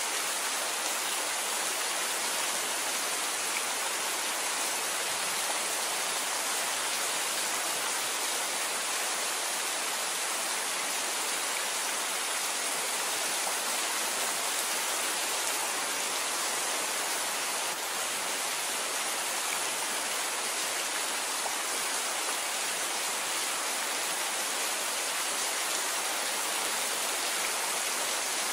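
Steady rain falling, an even hiss without separate drops standing out and without thunder.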